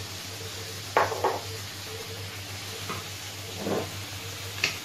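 A spoon knocking twice against a frying pan about a second in, then a few lighter clicks and a dull knock, over a faint sizzle of courgettes and potatoes frying in oil.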